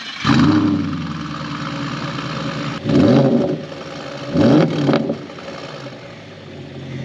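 Audi S5's 4.2-litre V8 starting up with a flare of revs that settles, then blipped twice, about three and four and a half seconds in, each a short rise in pitch, before dropping back to a steady idle.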